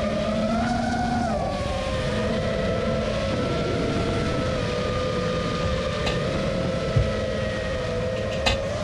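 Brushless motors and propellers of an Armattan Rooster FPV quadcopter whining in flight, picked up by its onboard camera; the pitch drifts up and down with the throttle over a rough rush of air. Two brief knocks come near the end.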